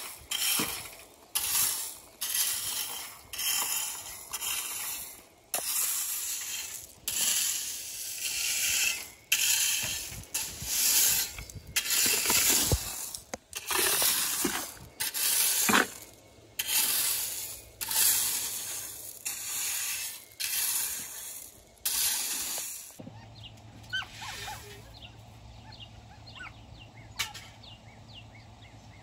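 A garden rake dragged through pea gravel, scraping and crunching in repeated strokes about once a second. The strokes stop a few seconds before the end.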